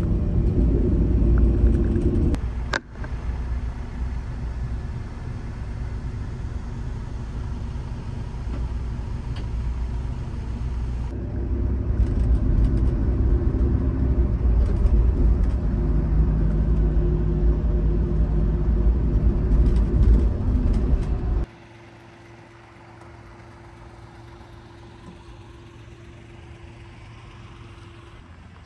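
Low road and engine rumble in a moving coach's passenger cabin, with a brief break near three seconds in. About three-quarters of the way through it cuts off suddenly, leaving a much quieter steady hum.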